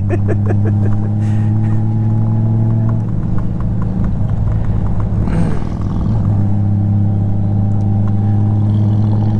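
Honda Goldwing GL1500's flat-six engine running steadily while the motorcycle cruises, a constant low drone. Its note dips and shifts briefly about five seconds in, then settles again.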